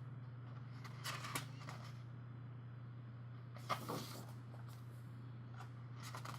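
Short rustles of paper as the glossy pages of a photo book are handled and turned, a few times, over a steady low hum.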